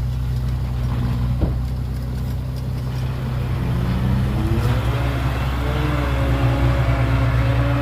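Heavy diesel engine of earthmoving equipment running with a steady low drone, with a brief knock about a second and a half in; about three and a half seconds in the engine revs up and then holds at the higher speed.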